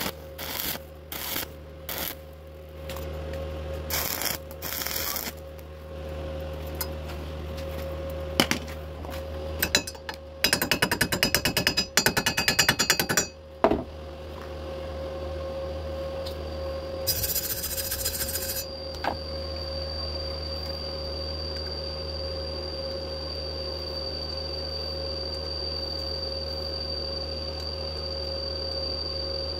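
Stick-welding arc on thin square steel tube, struck in several short crackling bursts over the first few seconds as the joint is tacked. Near the middle comes about three seconds of rapid loud strokes, and from about two-thirds of the way through a steady hum with a constant high whine runs on.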